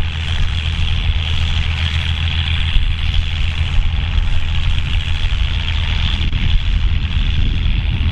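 Volvo BM farm tractor's diesel engine running steadily.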